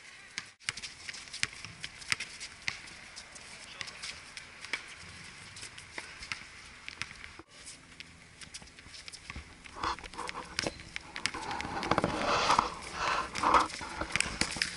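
Pickup basketball on an outdoor asphalt court: a scatter of quick taps and scuffs from sneakers and the bouncing ball. Players' voices call out during the last few seconds.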